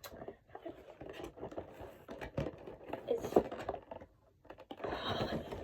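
Hands scratching and prying at a toy blind box's packaging to get it open: a run of small scrapes and clicks, a short pause, then a denser rustle near the end.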